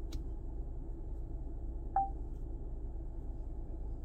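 Single short beep from a Sony XAV-9500ES touchscreen head unit confirming a tap on a menu item, about two seconds in, with a faint click near the start, over a steady low background hum.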